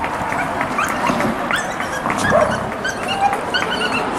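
A dog barking and yipping over and over in short, sharp calls, with a quick run of higher yips about three seconds in.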